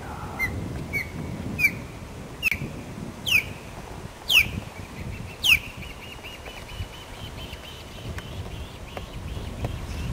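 Osprey calling: a series of about seven sharp, downslurred whistles that grow louder, followed by a faint rapid chattering trill about six seconds in. Low wind rumble on the microphone runs underneath.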